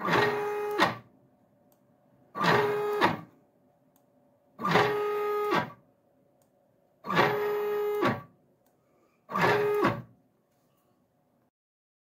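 Stepper motor of a Sienci LongMill CNC's X axis driving the carriage in five short jog moves. Each move lasts about a second with a pause of about a second between, its whine rising in pitch as it speeds up and falling as it stops. The moves end about ten seconds in.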